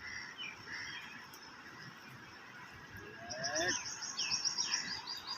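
Birds calling: many short, falling chirps, with a fast run of high chirps starting about three seconds in.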